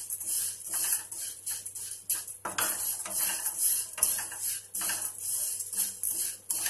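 A spatula stirring and scraping vermicelli around a frying pan as it roasts, giving a dry rustling, scratching sound in repeated uneven strokes.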